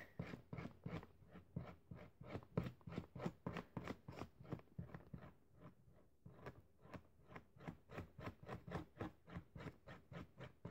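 Washable marker tip stroked over and over along a strand of hair, faint quick rubbing strokes, several a second.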